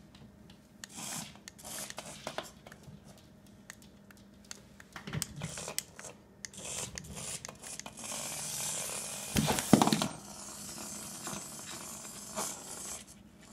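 Scratching, rustling and light clicks of a cat playing with a remote-control toy mouse on a tile floor, with a louder scuffle of sharp clicks about ten seconds in.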